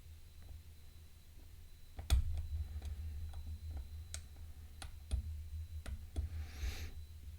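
Irregular small metallic clicks of a pick working the spring-loaded pins of an Abus P12R dimple lock while it is held under tension, the loudest about two seconds in. A short soft rush of noise comes near the end, over a steady low hum.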